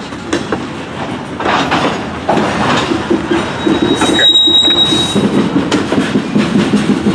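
Covered hopper cars of a freight train rolling slowly past, a steady rumble with wheels clicking over the rail joints. A thin, high wheel squeal sounds for about a second about halfway through.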